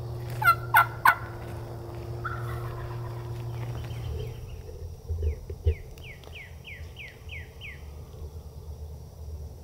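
An Osceola wild turkey gobbling, a short loud burst about half a second in. Later a run of about seven quick, falling high notes follows, and a low steady hum stops about four seconds in.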